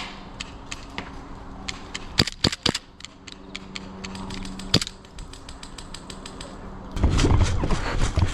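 Airsoft guns firing: scattered sharp clicks and cracks at an irregular pace, a few loud close shots about two seconds in and near the five-second mark. Near the end a louder rushing noise takes over.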